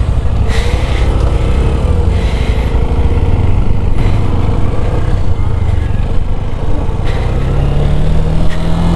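Sinnis Akuma 125 motorcycle engine running steadily as the bike rides slowly away over grass, the note rising gradually near the end as it speeds up.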